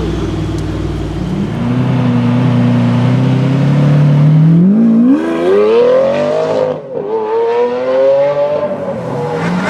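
Supercar engine accelerating hard: its note climbs gradually, then rises steeply to a high pitch, breaks off briefly about seven seconds in, then picks up again, holds high and eases off near the end.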